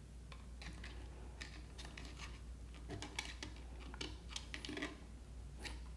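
Faint, scattered clicks and scrapes of hands handling a plastic housing while pushing a servo cable and its connector through a tight hole in it.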